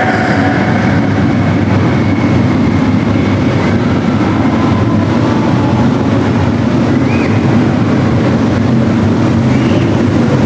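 Several Harley-Davidson police motorcycles with V-twin engines running together at low speed, a steady dense rumble.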